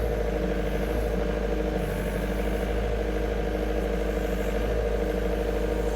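Forklift engine running steadily at an even pitch while backfill soil is pressed down around a newly set pole.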